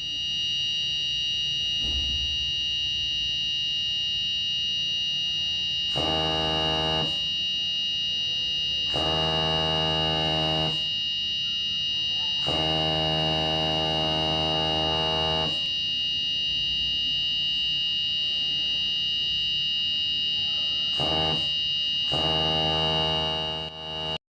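Electronic alarm buzzer of a carbon monoxide monitor prototype sounding a steady, high-pitched warning tone. A lower, coarser buzz cuts in five times for one to three seconds each, and the sound stops abruptly near the end.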